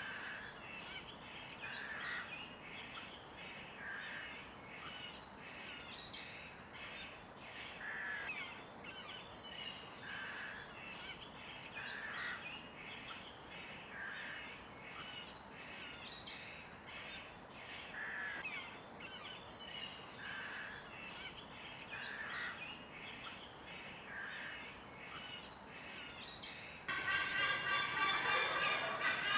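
Several small birds chirping in quick, sharply falling notes that repeat every second or so over a steady outdoor hiss. About 27 seconds in, it cuts abruptly to a louder, denser chorus of bird song.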